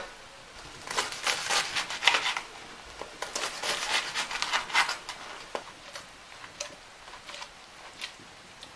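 A serrated knife sawing through a crusty baguette on a wooden board, the crust crackling with each stroke. The strokes come one after another for a few seconds, then give way to a few light clicks.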